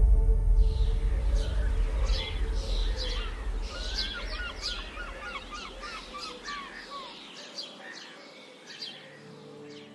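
Songbirds singing and chirping, with a fast run of short repeated notes around the middle. A low rumble underneath fades away over the first seven seconds.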